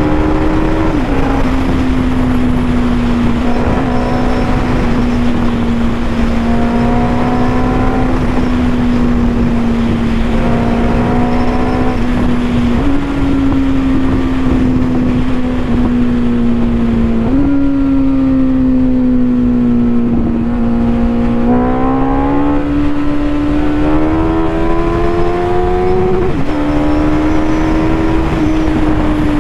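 Suzuki Hayabusa's inline-four engine running at cruising speed under a heavy rush of wind noise. Its note steps up a few times and eases back, climbs under throttle later on, then drops back near the end.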